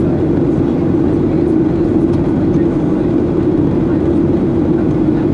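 Steady cabin noise of a Boeing 737-800 in flight, heard from a window seat by the wing: the CFM56-7B engines and the airflow make an even rushing roar with a strong low hum.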